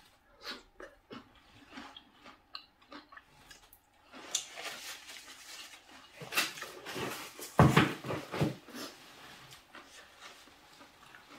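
A person chewing with small wet mouth clicks, then several seconds of loud sniffing and blowing through the nose into a tissue, loudest about eight seconds in, from the heat of spicy Isan curry.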